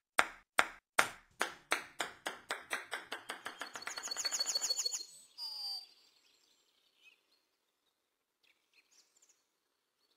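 Ping-pong ball bouncing on the table and coming to rest: sharp knocks that come faster and faster and fade away over about five seconds, followed by a brief high chirp.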